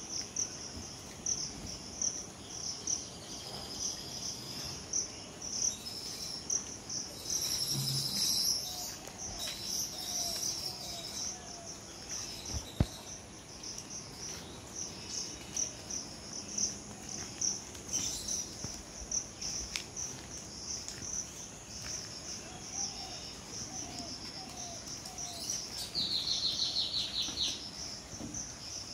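Crickets chirping in a steady, evenly pulsing chorus. A bird gives a short fast trill near the end, and a single sharp click sounds about halfway through.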